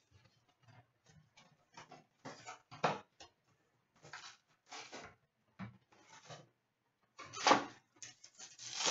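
Hands opening a cardboard hockey card box and sliding out and stacking the wrapped card packs: scattered rustles and scrapes of cardboard and wrappers, loudest about seven and a half seconds in.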